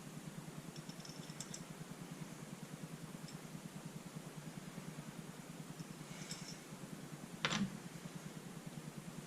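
Paintball marker parts being handled: a few faint light clicks, then one sharper knock about seven and a half seconds in, over a steady low hum.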